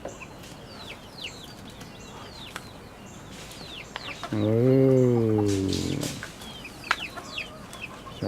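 Chickens clucking and peeping, with many short high chirps that fall in pitch. A man's voice gives one long drawn-out call a little past halfway.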